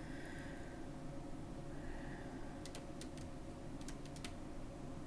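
Faint computer keyboard keys clicking, a short run of about eight keystrokes around the middle, over a steady low room hum.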